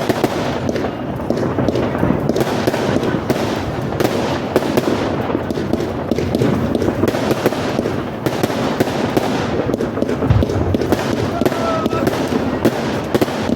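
Fireworks crackling densely and continuously, many small pops a second, with one low thump about ten seconds in.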